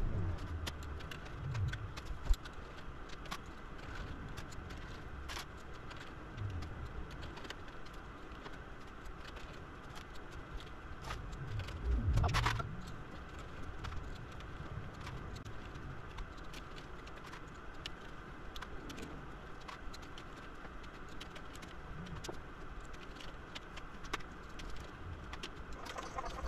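Scattered light metallic clicks and clinks of a hand tool and metal parts being worked on a hybrid battery pack, over a steady background hiss, with a louder handling bump about halfway through.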